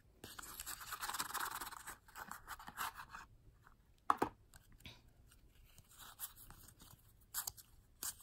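A cardboard playing-card box being opened and the deck slid out: a scraping rustle for about the first three seconds, then a sharp tap about four seconds in, followed by light clicks of the cards being fanned.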